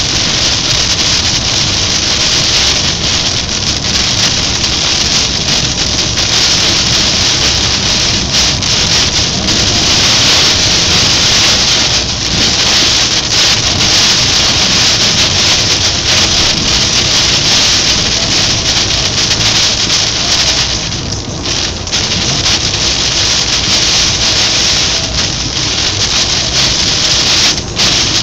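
Heavy rain hitting a moving car's roof and windscreen, heard inside the cabin as a loud, steady hiss over the car's road noise. It eases briefly about three-quarters of the way through.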